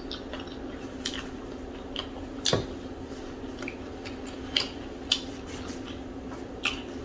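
Close-miked eating sounds of a person chewing fufu and okra soup: scattered wet mouth smacks and clicks, the loudest about two and a half seconds in, over a steady low hum.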